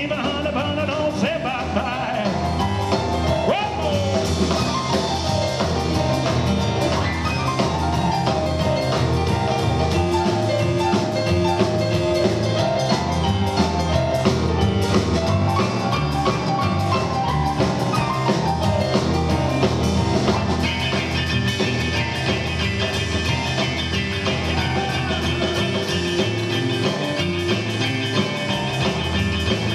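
Live rock 'n' roll trio playing: fast piano on a Yamaha stage keyboard over double bass and drums, with no singing, an instrumental break. About two-thirds of the way through, a fast run of repeated high notes sets in.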